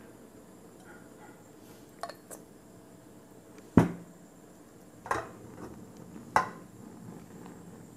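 A few sharp knocks and clatters of a glass cooking-oil bottle and a stone-coated wok: the bottle is set down on the counter and the wok is handled on a portable gas stove to spread the oil. Two light clicks come about two seconds in, the loudest knock just before the middle, and two more knocks over the next few seconds.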